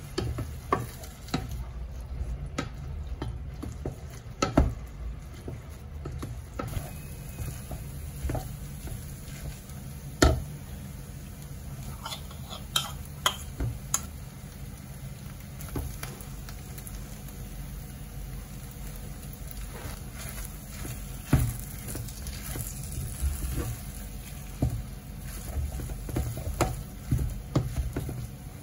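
Wooden spatula stirring risotto in a stainless steel saucepan, a soft scraping over a faint simmering sizzle. The spatula knocks sharply against the side of the pan now and then, loudest about ten seconds in and again about twenty-one seconds in.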